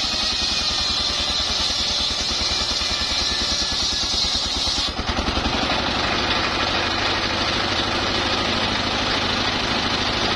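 Stationary single-cylinder diesel engine driving a homemade table circular saw, running with a fast, even firing beat. The blade rips lengthwise through a timber beam with a high hiss that cuts off about halfway through, leaving the engine and the blade spinning free.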